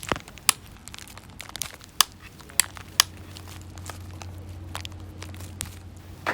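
Something being crushed and crumpled: a run of sharp, irregular cracks and crinkles, loudest and densest in the first three seconds and sparser after, over a faint steady low hum.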